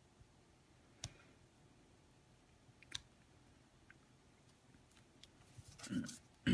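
Card stock being handled and pressed down by hand onto a card base: a few faint, sharp clicks of card and fingers against the mat, then a rustle as both hands press and smooth the layered panel near the end.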